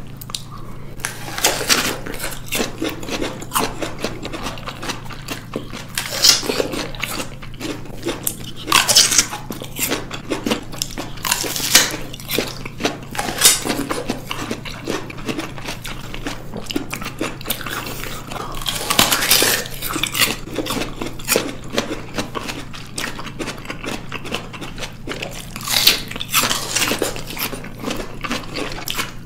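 Two people biting into and chewing firm white-fleshed peaches: repeated crunching bites with chewing in between, several bites standing out louder than the rest.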